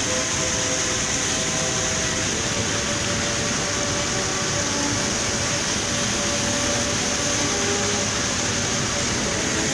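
Waterfall on the Treja river at Monte Gelato, rushing steadily: a constant, even wash of falling water close by.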